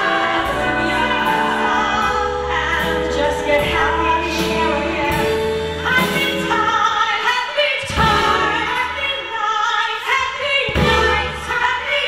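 Two women singing a duet into microphones, accompanied by a live band.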